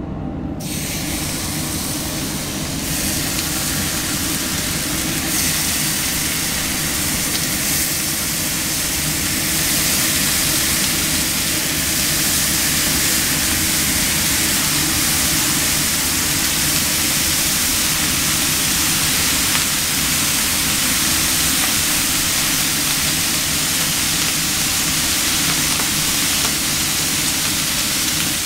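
Bacon strips sizzling on a hot flat-top griddle as more strips are laid down. The hiss grows louder over the first ten seconds, then holds steady.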